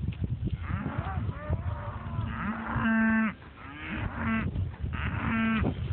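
Herd of cattle mooing: several calls from different animals, the loudest a held moo about three seconds in, with shorter ones after it.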